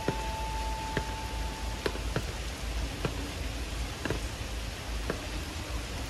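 Heavy rain falling steadily on water and paving, with irregular sharp taps of large drops landing close by. A faint thin steady tone sounds for the first couple of seconds.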